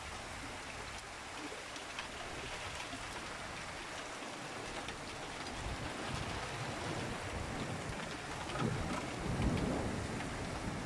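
Downpour of rain falling steadily during a thunderstorm, with a low rumble of thunder swelling near the end.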